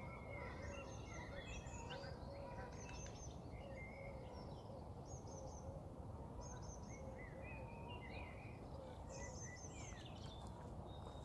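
Songbirds chirping and trilling, with short high calls repeated often. Under them runs a low steady outdoor rumble and a faint wavering hum.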